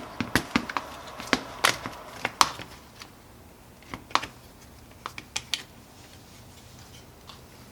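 Scattered sharp clicks and knocks, thicker in the first couple of seconds and sparser after: the plastic clamshell housing of a Milwaukee Fuel hammer drill being pried and worked apart by hand.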